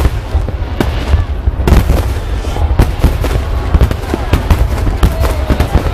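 Finale barrage of a large fireworks display: shells bursting in rapid, overlapping succession, sharp bangs and crackles over a continuous deep rumble.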